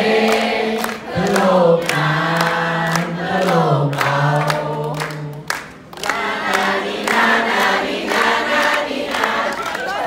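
A large group of people singing together and clapping along in time. A strong voice near the microphone holds low notes through the first half, and the singing drops briefly about halfway through.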